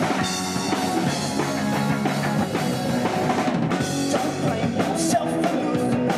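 Live rock band playing through a PA: electric guitars over a drum kit, with a steady beat.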